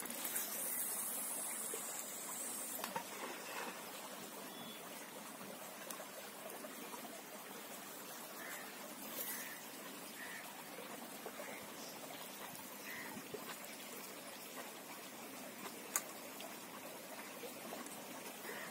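Shallow river water flowing and trickling over sand, steady throughout, with a louder high hiss in the first three seconds and a single sharp click near the end.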